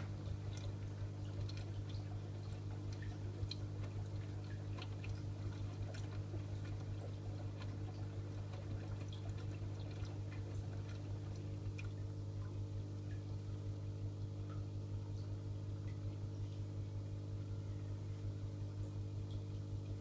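AEG Öko-Lavamat 88840 front-loading washing machine taking in water for a rinse: water splashes and drips onto the laundry in the drum over a steady low machine hum. The splashing thins out about halfway through.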